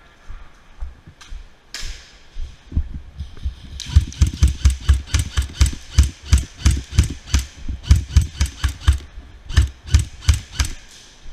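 Running footsteps picked up through a body-worn camera as a steady run of heavy thumps, about three to four a second, with gear rattling on each stride. They start a few seconds in and ease off near the end, with distorted sound.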